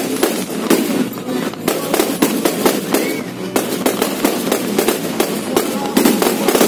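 A fireworks barrage going off at close range: a rapid, irregular string of bangs and crackles, several a second.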